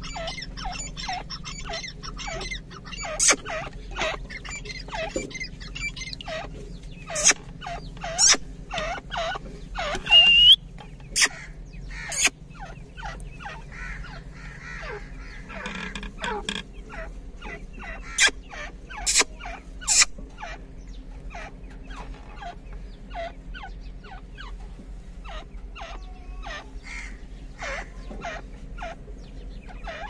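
Grey francolin chicks peeping continuously: short, falling peeps, several a second. A handful of much louder sharp notes break in, bunched about a third of the way through and again about two thirds through.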